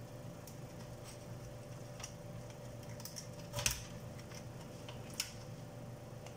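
Sparse light clicks and taps of hands working inside an opened pulse oximeter's plastic case and circuit boards, with a louder knock a little past three and a half seconds in, over a faint steady hum.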